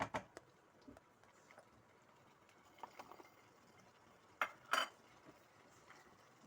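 Kitchen utensils clinking and knocking against a bowl or pot: scattered short knocks, a few at the start and near three seconds, and the loudest two close together about four and a half seconds in.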